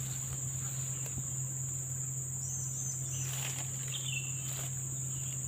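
Steady high-pitched insect chorus, an unbroken trilling buzz of forest insects, over a low steady hum, with a couple of brief faint rustles past the middle.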